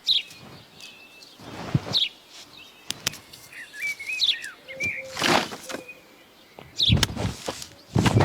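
Small birds chirping, with short, warbling phrases. Several brief scuffing noises break in about two seconds in, midway, and near the end.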